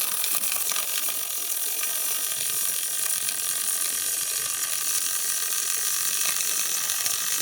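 Robotic arc welding on a fan impeller: a steady, dense crackle of the welding arc laying a seam without a break, with a faint steady whine beneath it.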